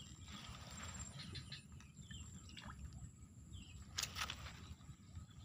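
Quiet swamp-side outdoor ambience: a steady low rumble with faint, scattered bird chirps. A short sharp noise, like a small splash, comes about four seconds in.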